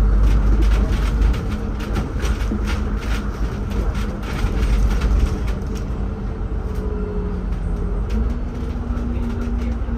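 City bus heard from inside the cabin while moving: a steady low engine and road rumble with frequent rattles and clicks from the body. The engine note climbs about eight seconds in as the bus picks up speed.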